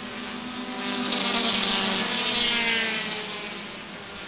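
A pack of compact touring race cars running at racing speed on the oval, with engines at high revs. The sound swells as the field passes about a second or two in, then fades as the cars move away.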